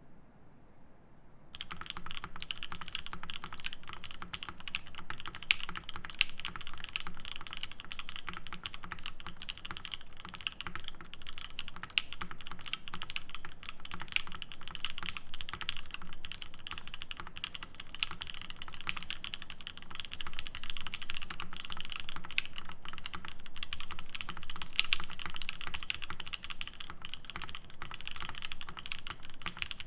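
Fast, continuous typing on a Matrix Noah mechanical keyboard with lubed H1 switches, an aluminium plate and DCS keycaps. The typing begins about a second and a half in, after a short lull.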